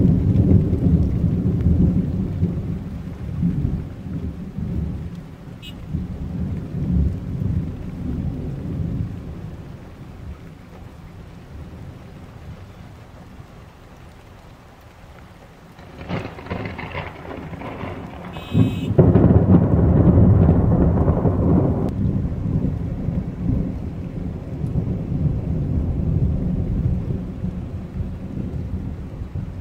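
Thunder rolling in a rainstorm: a long low rumble fades out over the first ten seconds, and a second, louder peal breaks about two-thirds of the way through and rumbles on, dying away slowly. Rain falls throughout.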